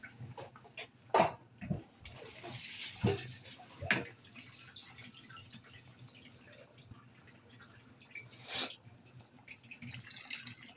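Pork boiling in broth in a frying pan: a steady bubbling of the liquid, broken by a few sharp knocks, the loudest about a second in and another near the 8-second mark.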